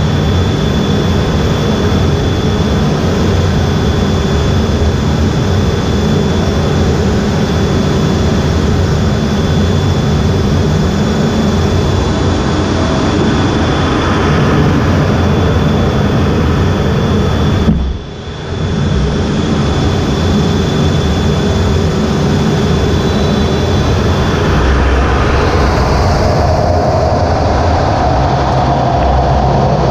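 Jet engines running on a carrier flight deck, heard from the EA-18G Growler's cockpit: a loud, steady rush with a thin high whine. About halfway through it drops out sharply for about a second. A heavier low rumble and a steadier mid tone come in near the end.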